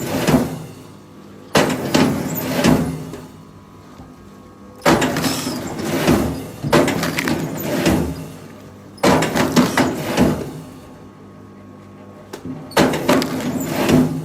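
Logging work: an engine running steadily beneath four loud bursts of knocking and scraping, about every four seconds.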